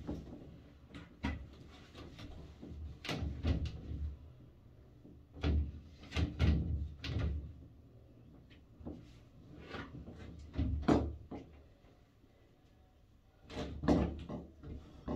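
Irregular knocks, bumps and clicks of a person moving about and handling things in a small tiled bathroom, the loudest thumps around six, eleven and fourteen seconds in.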